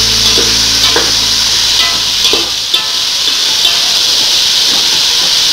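Chopped vegetables and tempering seeds sizzling steadily in hot oil in an aluminium pot, with a metal spatula scraping and knocking against the pot now and then as they are stirred. A low hum underneath stops about halfway through.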